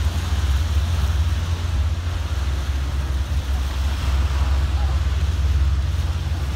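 Wind buffeting the microphone: a loud, steady, fluttering low rumble over a faint wash of open water.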